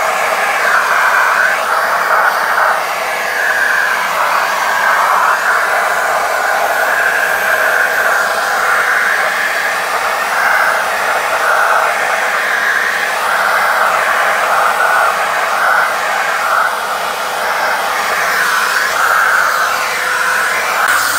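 Vacuum cleaner running, sucking through a narrow crevice nozzle along the grooves of a window rail. The airflow's rushing note wavers up and down as the nozzle moves and presses against the rail.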